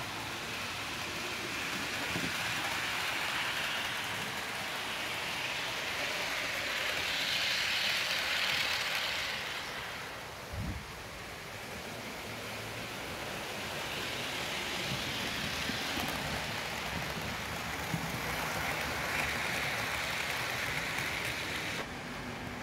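OO-gauge model train, a Hornby Lord Nelson and King Arthur double-heading a rake of coaches, running on the layout track: a steady rolling hiss of wheels and motors that swells and fades several times as the train passes. There is a single click about halfway through, and the sound drops abruptly near the end.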